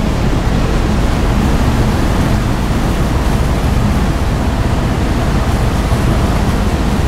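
Steady, even rumble and rush of a car ferry under way, its engines and churning wake heard from the open deck as it pulls away from the pier.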